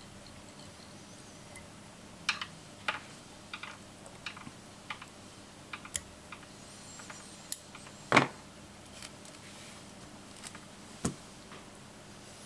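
Scattered small clicks and taps of fly-tying tools being handled at the vise, including scissors trimming the tying thread, with one louder knock a little past the middle.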